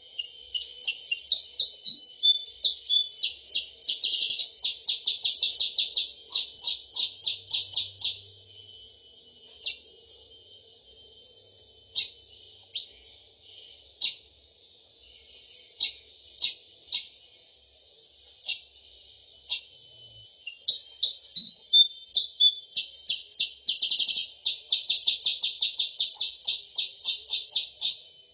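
Recorded lure song of the kutilang sutra (percang): sharp, high chips that speed up into rapid trills, in two long bouts with scattered single chips between, the second bout repeating the first as a loop.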